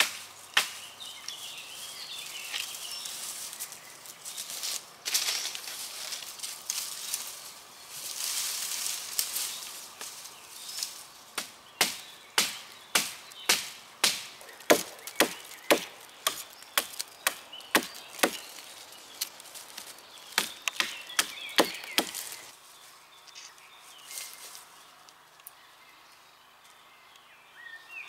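Dry wood cracking and splintering: a run of sharp cracks, about one or two a second, through the middle of the stretch, after bouts of rustling in brush and dry leaf litter.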